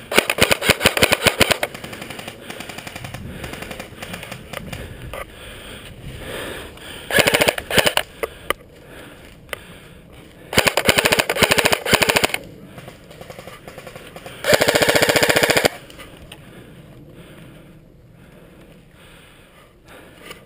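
Airsoft rifles firing rapid full-auto bursts, four of them: the first at the start, then about seven, ten and fourteen seconds in. The last is a steady unbroken stream of shots about a second long.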